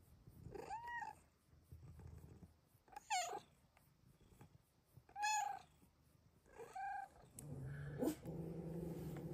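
Snow Lynx Bengal kitten giving four short meows about two seconds apart, each rising and falling in pitch, then settling into a steady low purr near the end.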